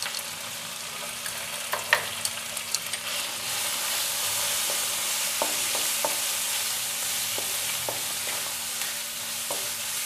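Masala of ground spices, tomato and ginger-garlic paste sizzling in oil in a nonstick frying pan, stirred with a spatula that scrapes and clicks against the pan now and then. The sizzle grows louder about three seconds in, as the masala is fried until the oil separates from it.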